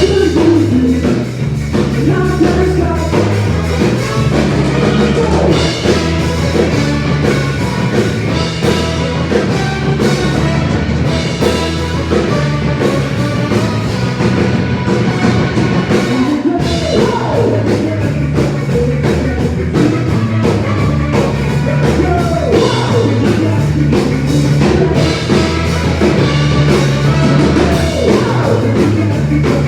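Live rock band playing loud and continuously, with drum kit, bass and electric guitar.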